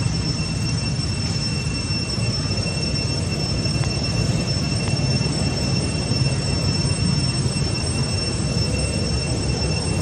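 Steady low rumble of wind buffeting the microphone outdoors, with a thin, steady high-pitched whine running over it.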